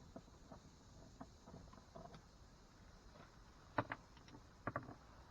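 Faint, scattered clicks and taps of small hand tools and loose fasteners against a car's plastic door trim, with two pairs of sharper clicks about four and five seconds in.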